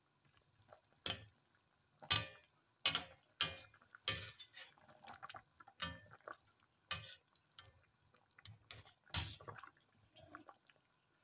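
Wire skimmer stirring chicken pieces in simmering broth in a wok, clinking and knocking against the pan at irregular moments about a second apart, with a little liquid sloshing.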